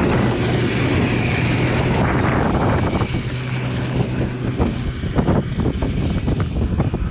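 An engine running steadily under wind buffeting the microphone. The engine hum drops away about five seconds in, leaving ragged gusts.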